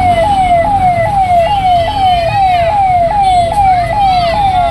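Police vehicle siren sounding continuously in a fast repeating cycle: each note jumps up and slides down, about two to three times a second. Traffic noise runs underneath.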